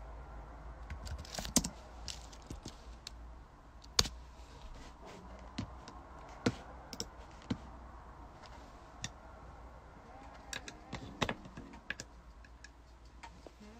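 Irregular clicks and taps close to the microphone, like typing, over a faint low hum.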